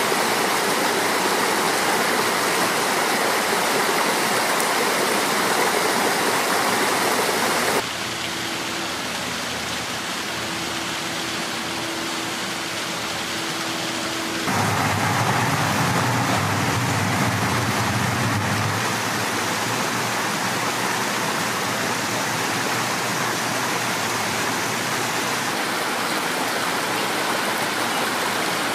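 Water rushing and splashing over rocks in a landscaped stream, a steady even rush. About a third of the way in, it cuts abruptly to a quieter stretch with a steady low hum. A few seconds of low rumble follow, then the even water rush returns.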